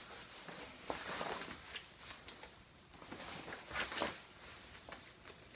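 Fabric rustling as a camouflage combat shirt is pulled on over a T-shirt and tugged down into place, with louder scuffs about a second in and again near four seconds in.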